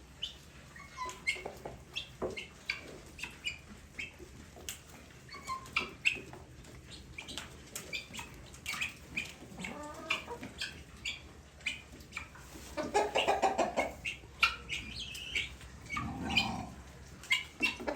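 Guineafowl calling: many short, harsh calls repeated in quick succession, with louder, denser bursts of calling about thirteen and sixteen seconds in.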